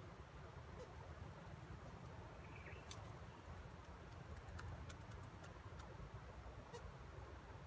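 Near silence: a faint low rumble with scattered faint ticks, and one brief faint chirp about two and a half seconds in.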